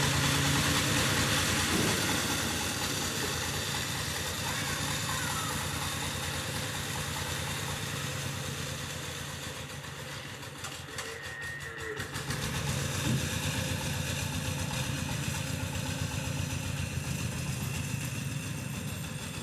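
An engine running steadily, dipping briefly about halfway through and then picking up again.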